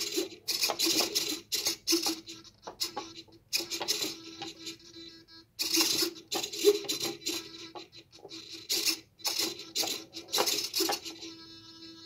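Small actuator motors tilting a wooden labyrinth game board, whirring in short irregular bursts as they correct its tilt, while a steel marble rolls over the wood. Near the end the bursts stop and a faint steady hum remains.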